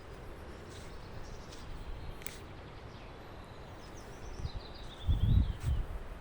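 Outdoor ambience with a steady low rumble of wind on the microphone, which buffets loudly about five seconds in. Near the end a small bird sings a short run of high notes that step down in pitch.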